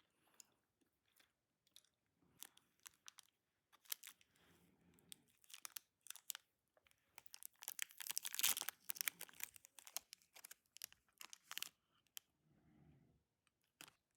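Close, irregular crackling and crunching, densest and loudest about eight to nine seconds in.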